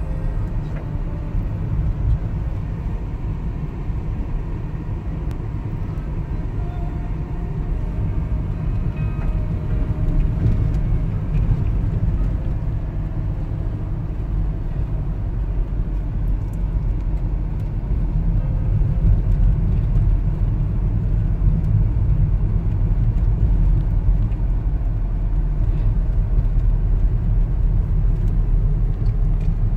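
Steady low rumble of a car's engine and tyres heard from inside the cabin while following slowly along a lane.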